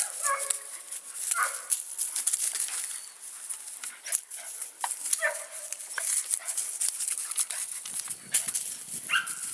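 Puppy giving short, scattered yips and whines as it chases and pounces on a feather lure, over a constant crackle of dry leaves and grass underfoot.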